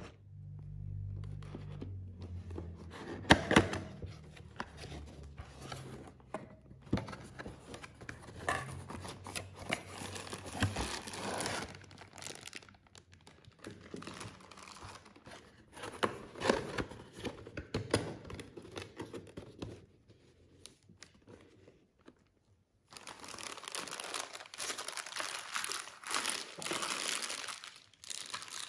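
Cardboard packaging and clear plastic bags being handled: flaps opened, plastic crinkling and tearing as a boxed figure and its parts are unwrapped, with frequent sharp taps and knocks. It pauses briefly about two-thirds of the way through, then goes on with steady crinkling of plastic film.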